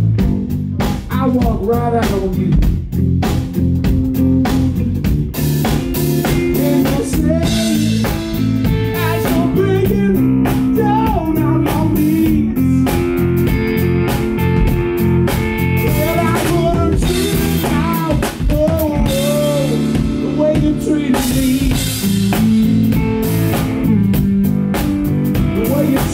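Live blues band playing an instrumental passage: electric guitar lead with bent notes over electric bass and a drum kit with cymbals.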